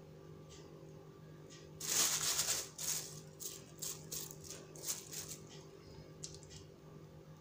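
A run of dry rustling and shaking strokes, from something handled by hand off-camera, starting about two seconds in and lasting some three and a half seconds, then a few light clicks. A faint steady hum runs underneath.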